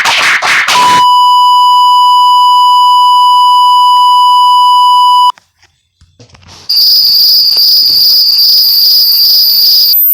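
A string of loud stock sound effects. The end of a run of sharp noisy bursts comes first, then a steady beep for about four seconds that cuts off. After a short gap, a high steady whine over hiss lasts about three seconds.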